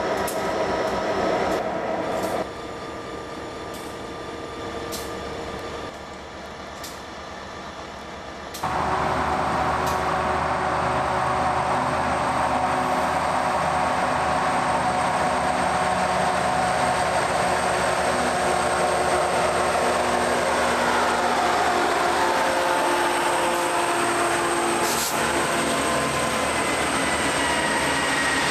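Diesel locomotives idling for the first couple of seconds, then, after a quieter stretch, a Norfolk Southern freight train's diesel locomotive coming in about nine seconds in, running steadily louder as it approaches and passes close by, with a tone sliding down in pitch as it goes by.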